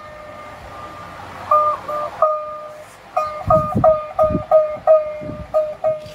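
A single-string ektara being plucked, one twanging note with its octave sounding over and over, at about three to four plucks a second in the second half. A few dull knocks come in about halfway through.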